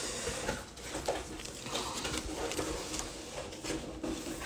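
Sleeved trading card being slid into a rigid plastic top loader: faint plastic rustling with scattered small clicks.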